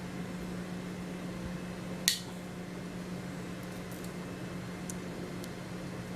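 A single sharp snip about two seconds in as the untwisted conductors of a Cat 6 UTP network cable are cut to length, followed by a few faint ticks of wire handling, over a steady low hum.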